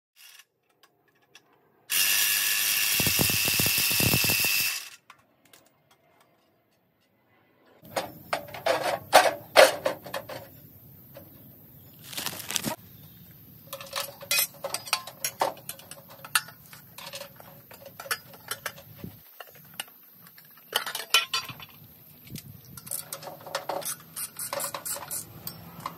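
A loud, steady rushing noise lasting about three seconds, then, after a short gap, a long run of scattered metal clinks, clicks and ratcheting from hand tools working on metal parts.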